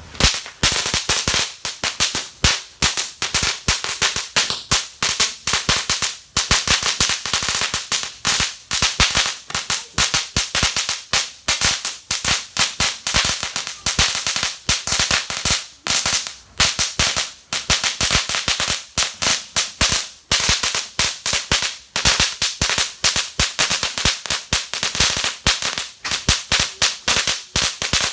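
A string of small firecrackers of the mini Judas belt type going off in a long, rapid, irregular crackle of sharp bangs, several a second.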